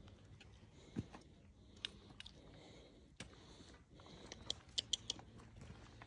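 Faint footsteps on a rocky trail with scattered sharp clicks of trekking-pole tips striking stone, a quick cluster of clicks near the end.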